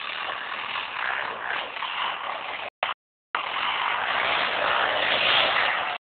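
Yamaha Raptor 700 ATV's single-cylinder engine running as it is ridden, heard as a loud, rough, even noise. The sound drops out to silence twice, briefly, about halfway through, and cuts off just before the end.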